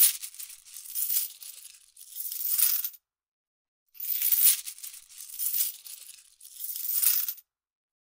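Money sound effect: money being rattled, a high-pitched hiss that swells three times, pauses for about a second, then swells three more times and stops suddenly.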